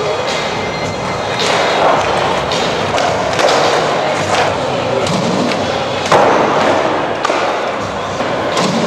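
Skateboards rolling over the hard floor of an indoor skatepark, with irregular sharp knocks and thumps about once a second from boards popping, slapping and landing.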